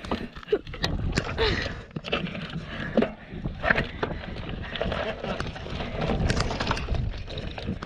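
Mountain bike rolling over a rocky dirt trail: tyres crunching on gravel and slickrock, with the frame and parts rattling and clicking over the bumps, and wind rumbling on the microphone.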